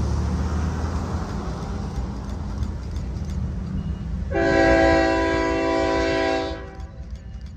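Diesel freight locomotive's horn sounding one long blast of several notes at once, starting about four seconds in and lasting some two seconds, the warning signal for a road grade crossing. A low rumble of the approaching train runs underneath.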